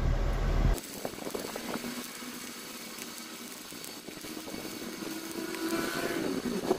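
Stick-welding arc from an inverter welder set to 80 amps, burning a 3.2 mm 6013 electrode: the arc is struck with a few crackles, then runs as a steady, fairly quiet crackling hiss. A low rumble cuts off abruptly just under a second in.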